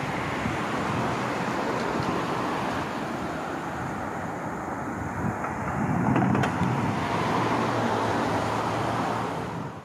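Steady street traffic noise, with vehicles running and passing. The traffic grows a little louder about six seconds in, with a low engine hum.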